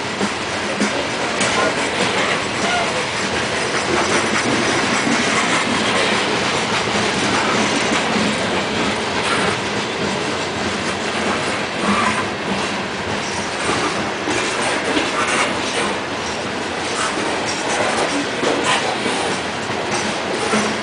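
Norfolk Southern coal train's hopper cars rolling steadily past: a continuous rumble with many sharp clicks at uneven intervals from the steel wheels running over the rail joints.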